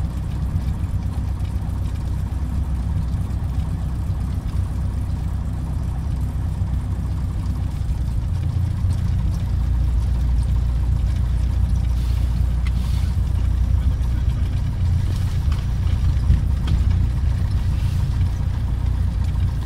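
Light aircraft's piston engine and propeller running at low power while taxiing, heard from inside the cabin as a steady low-pitched drone, a little louder in the second half.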